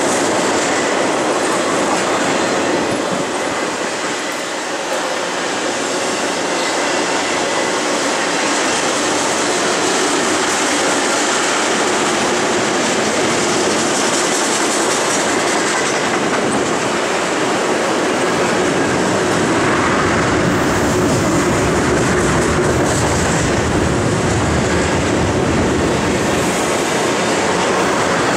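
Freight train of double-stack container well cars rolling steadily past, steel wheels running on the rails.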